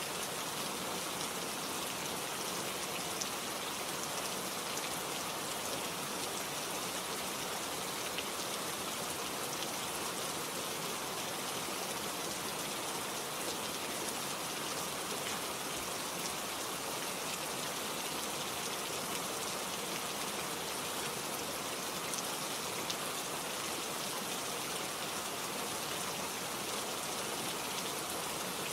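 Steady rain falling, a dense even hiss with scattered tapping of drops on surfaces.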